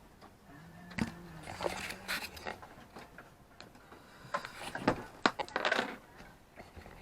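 Hand tools and bolts clinking and knocking against a stopped inboard boat engine during repair work, with rustling in between. The sharp knocks come in a cluster about five to six seconds in.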